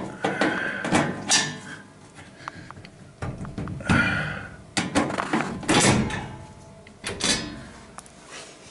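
Sheet-metal access panel of an air-conditioning unit being handled and taken off: irregular clanks, rattles and a couple of metal scrapes, one with a brief squeak about four seconds in.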